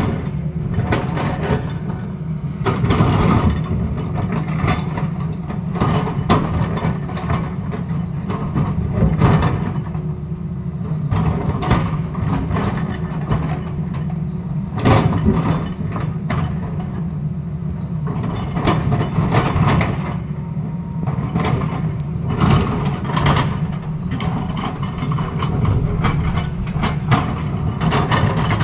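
Tata Hitachi hydraulic crawler excavator's diesel engine running steadily under load, with irregular knocks and clatter of the steel bucket scraping and striking rock and loose stone.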